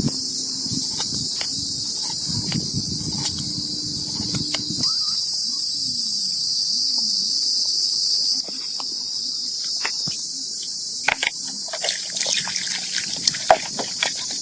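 A steady, high-pitched chorus of insects chirring, with scattered faint clicks and taps that come more often in the second half.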